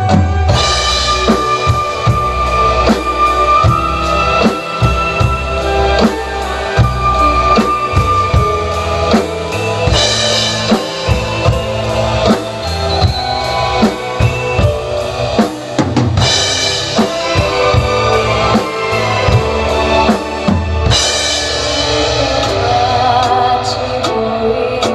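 Drum kit played along to the recorded backing track of a Korean ballad. Kick drum, snare and cymbals keep a steady beat, with cymbal crashes about ten, sixteen and twenty-one seconds in.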